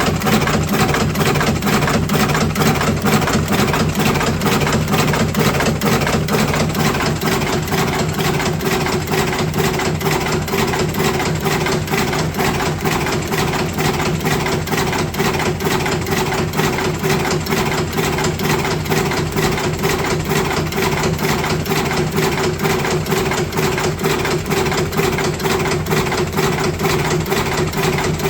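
Electric cigarette rolling machine running: a steady motor hum with a fast, even clicking from its mechanism.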